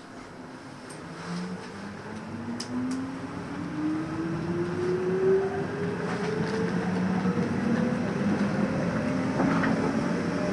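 Nishitetsu electric train pulling out of a station, heard from inside the car by the door: the traction motors whine in two tones that climb steadily in pitch as the train picks up speed, over rising wheel and running noise that grows louder throughout.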